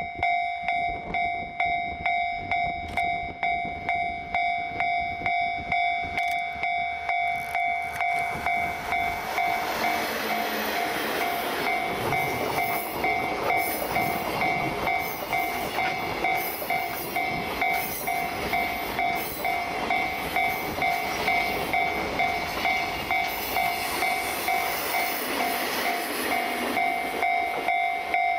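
A freight train of container wagons, hauled by DD51 diesel-hydraulic locomotives at front and rear, rolls past with wheel and rail noise that builds about 8 seconds in and fades near the end. A steady ringing pulses about twice a second throughout.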